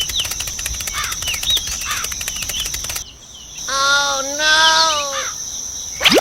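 Birds chirping over a steady, fast-ticking high insect trill, which drops out about halfway; then one longer wavering call for about a second and a half, and sweeping bird chirps near the end.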